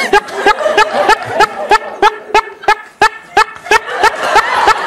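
A man laughing in a long run of short, evenly spaced bursts, about three or four a second.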